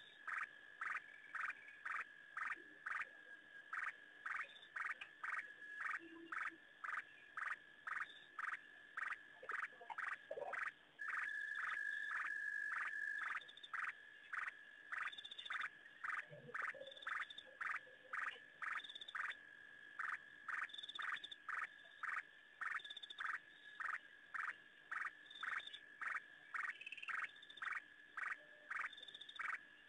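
A night-calling animal, frog or insect, gives short high-pitched pulses about twice a second. For about two seconds near the middle they run together into one continuous trill.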